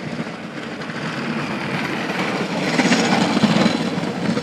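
A road vehicle passing by, its rushing engine and tyre noise swelling to a peak about three seconds in and then fading.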